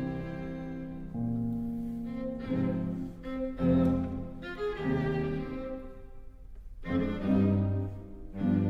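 Slow music on bowed string instruments, with low held notes in short phrases a second or two long.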